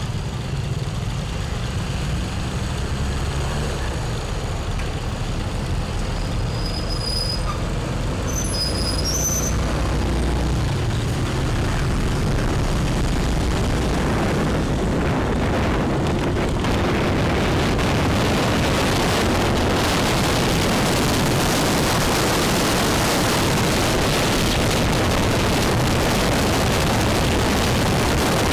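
Motorbike ride heard from the bike itself: a low engine hum while stopped at a junction, then pulling away, with wind noise over the microphone building as speed picks up from about ten seconds in.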